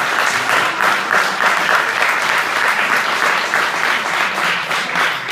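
Loud audience applause, a dense steady patter of many hands clapping.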